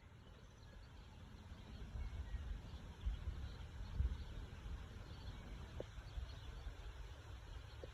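Faint outdoor ambience with an uneven low rumble, and a brief faint high call about two-thirds of the way in and another near the end.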